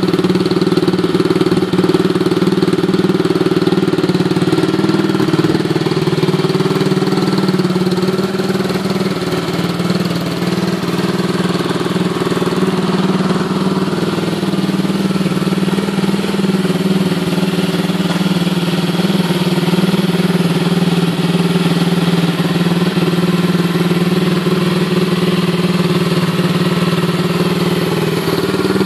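Honda Dax's 125cc Lifan single-cylinder four-stroke engine idling steadily through an aftermarket Kepspeed exhaust.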